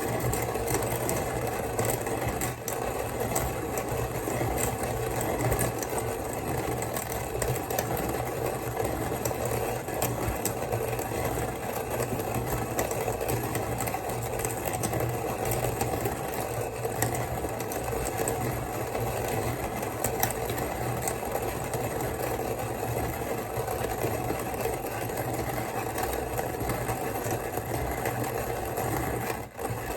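Kalita hand coffee grinder crushing coffee beans as its crank is turned: a steady, dense crunching crackle made of many fine clicks, with a brief drop just before the end.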